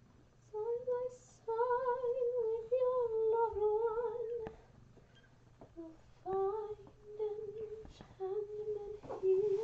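A woman humming a wordless tune in a high voice, in a few drawn-out phrases, with a few light knocks and rustles of bedding being handled in between.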